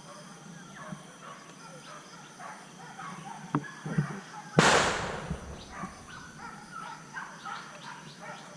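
A single sharp gunshot about halfway in, with a short noisy tail, after two lighter knocks. A steady high insect buzz runs underneath.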